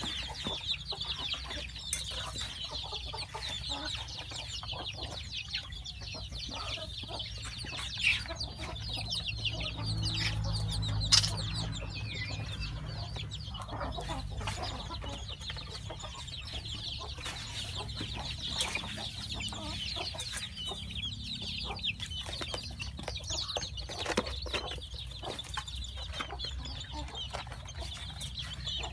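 A brood of young chicks peeping constantly, many short high cheeps overlapping. A low rumble rises about ten seconds in, and there are a couple of sharp knocks.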